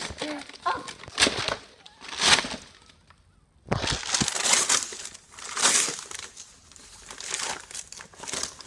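Gift wrapping paper and packaging being torn and crumpled in repeated rustling bursts as a present is unwrapped, with a short pause about three seconds in.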